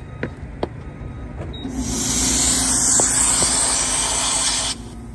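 Two sharp clicks, then compressed air from a gas-station tire inflator hissing through the hose chuck at a car tire's valve for about three seconds before cutting off suddenly. A low steady hum starts with the hiss and carries on after it.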